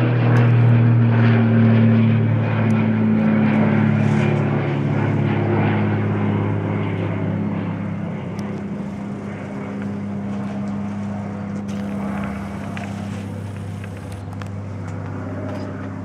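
An Extra EA-300L aerobatic plane's six-cylinder Lycoming engine and propeller passing low overhead with a steady droning hum. It is loudest at first and fades gradually as the plane flies away.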